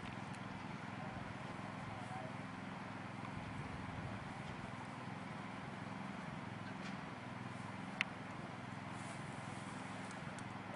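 Steady outdoor background noise with a low hum, broken by a single sharp click about eight seconds in.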